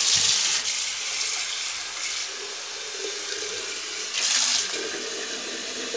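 Cold tap water running in a steady stream onto a tiled floor and down a floor drain, flushing chemical drain opener and boiling water through the pipes. The rush is briefly louder a little after four seconds in.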